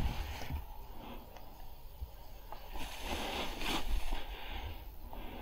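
Wind buffeting the camera microphone, with rustling of clothing, gear and grass as the player shifts position; the rustling swells about three seconds in.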